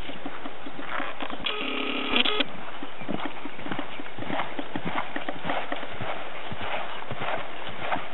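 Thoroughbred mare's hoofbeats on grass at a lope, an uneven run of dull thuds. About one and a half seconds in, a brief steady tone with several pitches sounds over the hoofbeats for under a second.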